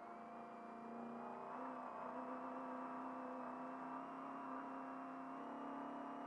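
Trophy truck's engine running under load at speed, its pitch edging up as the truck accelerates.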